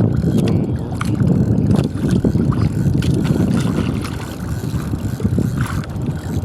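Steady rough rumbling of water and wind on the microphone, with scattered small knocks and splashes.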